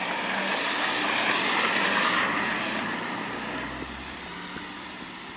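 A road vehicle driving past, its tyre and engine noise swelling over the first two seconds and fading away by about four seconds in.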